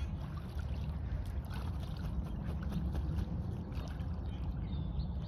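Water splashing and sloshing as two Canada geese paddle and bathe in a rain puddle, with a steady low rumble beneath.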